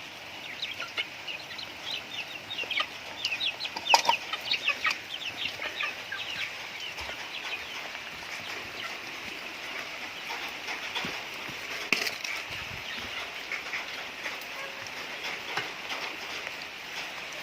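Flock of chickens clucking and chirping around their feed, busiest in the first few seconds, with a couple of sharp knocks and a steady hiss underneath.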